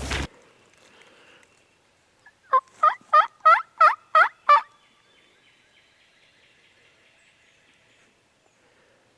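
A run of seven turkey yelps, about three a second, each note sharp and breaking downward in pitch. A brief rush of noise cuts off right at the start.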